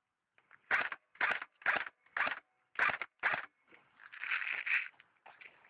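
Footsteps crunching on gritty ground: six quick steps, about two a second, then a longer scraping rustle about four seconds in.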